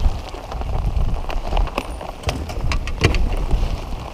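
Heavy rain falling on the water and the boat at the start of a sudden downpour: a dense patter with many sharp drop hits close to the microphone, over a low rumble.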